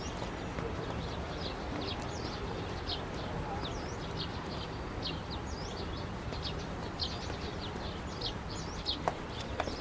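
Small birds chirping repeatedly, with short high calls, some sliding up or down, several every second over a steady low outdoor background noise.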